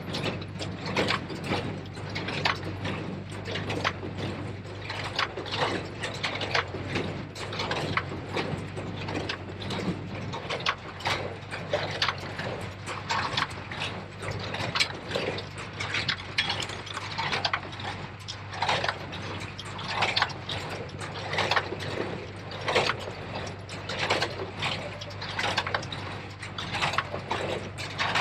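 New Holland 273 small square baler working, its mechanism clanking in a steady repeated rhythm about once a second over the constant hum of the Case IH JX75 tractor pulling it.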